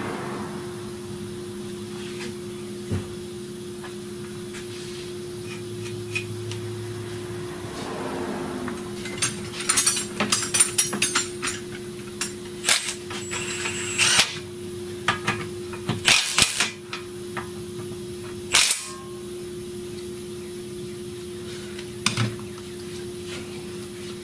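A run of metallic clinks and clanks from hand tools and small metal parts being handled, mostly between about 9 and 19 seconds in, one clank ringing briefly. A steady hum runs underneath.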